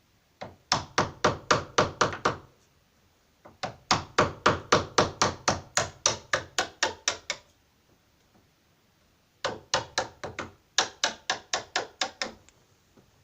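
A chisel being struck in three quick runs of blows, about five a second, with short pauses between, cutting out the recess for a deadlock in the door.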